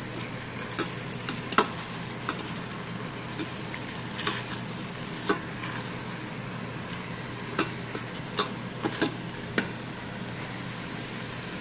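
Cubed chicken breast sizzling as it browns in hot oil in an Instant Pot's stainless steel inner pot on sauté. A silicone spatula stirring the meat knocks and scrapes against the pot in about ten scattered clicks.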